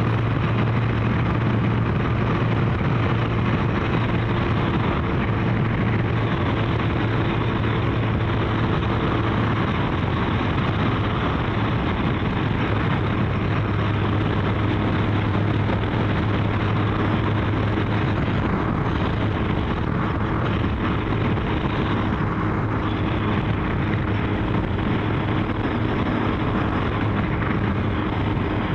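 Kawasaki GPZ1100 motorcycle's inline-four engine running at a steady cruise, with wind and road rush over it.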